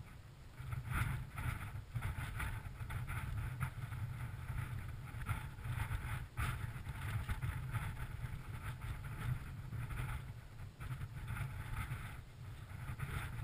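Wind buffeting the microphone of a helmet-mounted GoPro, a steady low rumble that swells and fades in gusts.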